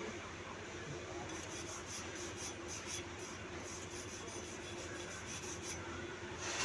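Rhythmic scraping strokes, about four a second, over a steady hum: slag being cleaned off a flux-cored weld bead.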